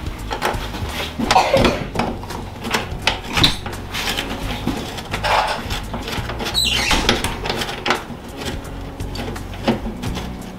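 Irregular knocks and clanks of metal parts being handled as a fender is hung on the truck's front end with a couple of bolts.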